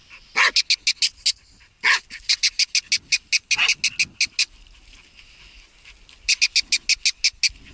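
Hunting laika barking excitedly at a marten's hole, in rapid runs of short high yaps with a few fuller, deeper barks among them, then a short lull about two thirds of the way through before it starts again.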